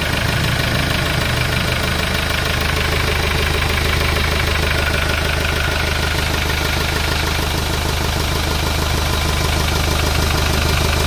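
Hyundai Starex's D4CB 2.5-litre four-cylinder common-rail diesel idling steadily after being started.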